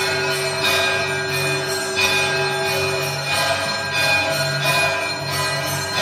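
Temple bells ringing continuously in quick, overlapping strikes, about two a second. A steady lower ringing tone beneath stops about halfway through.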